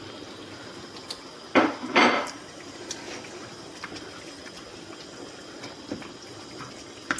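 Metal utensil knocking and scraping against a cooking pot of stew: two loud knocks about one and a half to two seconds in, then scattered light taps.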